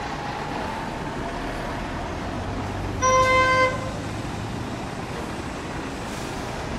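Street traffic passing close by on cobbles, with a single car horn honk of under a second about three seconds in.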